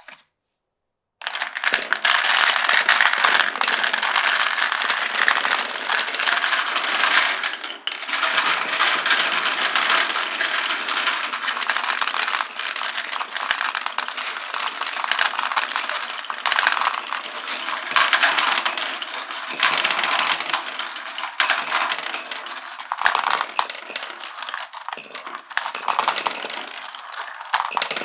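Many glass marbles rolling and clattering down a wooden marble run, a dense, continuous rattle of clicks and knocks that starts about a second in.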